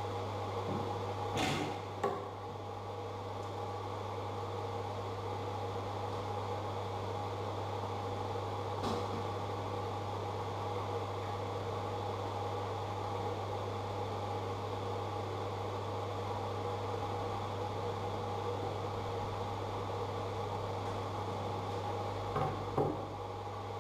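Steady low mechanical hum from the CNC router's running machinery, with a few sharp knocks as cut plywood pieces are handled: a pair about a second and a half in, one around nine seconds, and two close together near the end.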